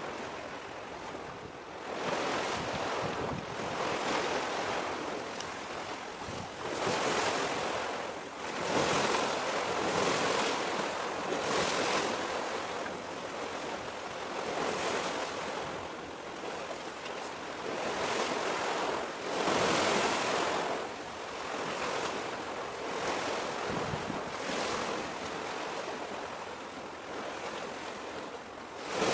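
Sea waves washing in, with wind rushing over the microphone, swelling and easing every two to three seconds.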